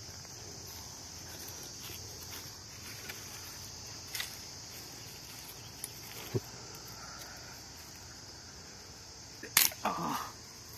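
Steady high-pitched drone of insects in a dry field, with a few small cracks of dry sticks being handled and one sharp crack of dry wood near the end.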